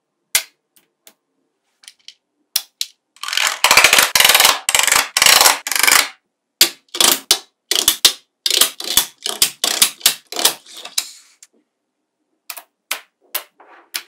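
Small magnetic balls clicking and snapping against each other as strips and columns of them are handled and pressed into place, with a dense run of rapid clattering clicks for about three seconds and scattered sharp clicks before and after.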